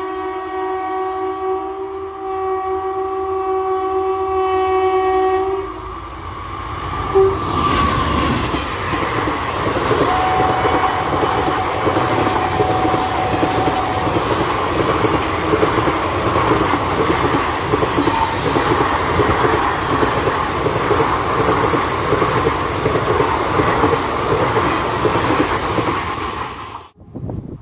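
Indian Railways WAP-4 electric locomotive's horn sounding one long blast, then an express passenger train passing at about 100 km/h: a loud, steady rumble with the clickety-clack of wheels over rail joints, and a short second horn note a few seconds into the pass. The sound cuts off abruptly near the end.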